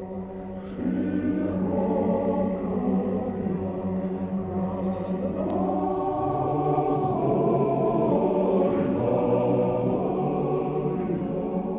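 Background music: a choir chanting in long held chords over a steady low drone, growing louder about a second in.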